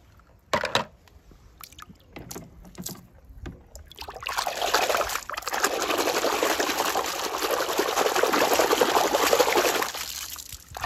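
A few light clicks and knocks, then about four seconds in, water pouring and splashing steadily for about six seconds before stopping just short of the end.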